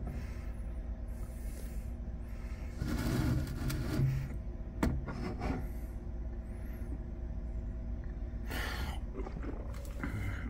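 Handling noise: rustling scrapes and a sharp knock about five seconds in, with another rustle near the end, over a steady low hum.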